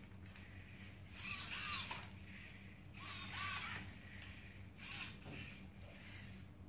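Robi humanoid robot's servo motors whirring as it walks forward, in three separate bursts: about a second in, about three seconds in, and near five seconds.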